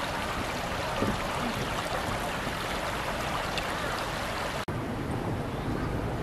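A small stream running fast down a stone-walled channel, a steady hiss of rushing water. About four and a half seconds in it cuts off abruptly and gives way to a duller outdoor background with low wind rumble on the microphone.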